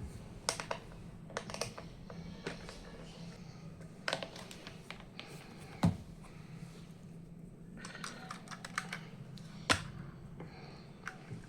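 Irregular clicks and light taps from a diecast toy car and its packaging being handled, with two sharper knocks about six and ten seconds in, over a low steady hum.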